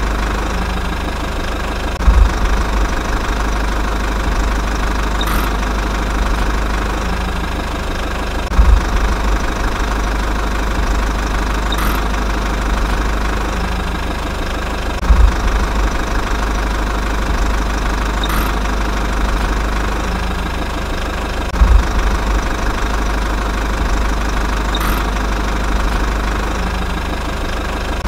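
Truck diesel engine idling steadily, a dubbed sound effect for the cardboard toy dump truck. It repeats as a loop, with a low thump about every six and a half seconds.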